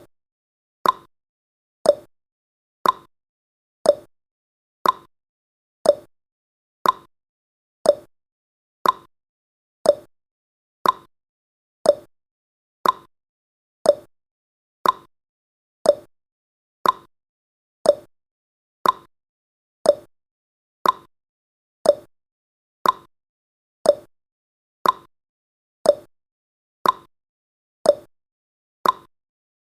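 Clock ticking sound effect of a countdown timer: a sharp tick about once a second, alternating higher and lower like a tick-tock.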